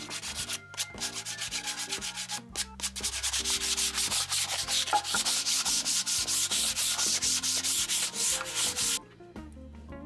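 Sandpaper rubbed back and forth by hand in quick even strokes, about five a second, growing louder partway through and stopping abruptly near the end, over background music.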